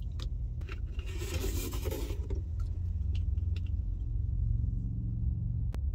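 Almond milk poured from a carton into a cup of coffee for about a second, over the steady low rumble of an idling semi truck. Small clicks and taps come from handling a little bottle and its cap, with a sharp click near the end.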